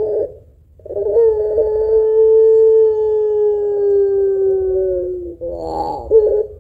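Puter pelung dove cooing: a short coo, then one long, drawn-out coo that slowly sinks in pitch over about four and a half seconds, ending in a brief rolling burble.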